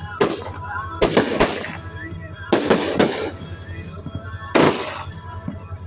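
Fireworks going off: about six sharp bangs, some in quick pairs, each fading out quickly, with music playing underneath.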